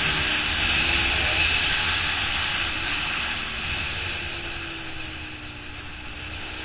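Wind rushing hard over the onboard camera of a Suzuki SV650 race bike, with the 645 cc V-twin's engine note running faintly underneath. The engine pitch drifts slowly down and the whole sound eases off as the bike slows.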